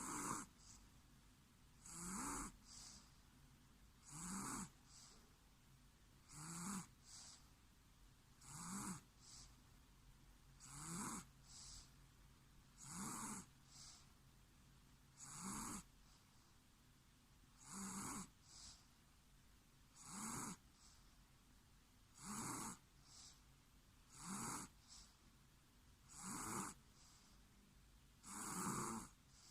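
A person snoring in a slow, regular rhythm, one snore about every two seconds, each with a low drone rising in pitch.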